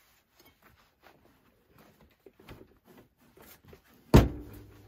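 Fabric and an embroidery hoop being handled while the fabric is fitted into it: soft rustles and light taps, then a sharp knock about four seconds in that rings on briefly.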